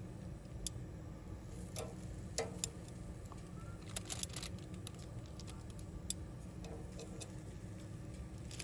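Scattered light clicks and taps of a utensil against a portable grill's wire grate as strips of tocino are laid on, over a steady low rumble.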